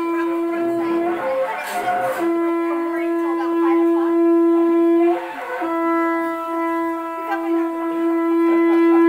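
A wind instrument blown in long, steady notes at one pitch, with a short higher note a little over a second in and a brief break about five seconds in.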